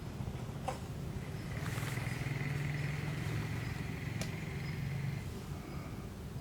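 A motor engine humming steadily for a few seconds, then fading, with a few light clicks.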